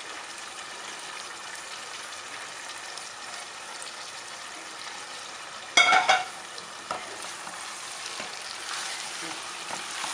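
Courgette slices and tomato sauce sizzling steadily in a pot over a strong flame. About six seconds in, a metal saucepan is set down with a loud ringing clang, and near the end a spatula starts stirring the pot.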